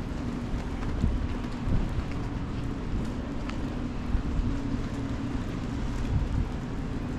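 Rainy city street ambience: a steady wash of rain and wet-road traffic noise over a low, even hum, with a few soft low thumps.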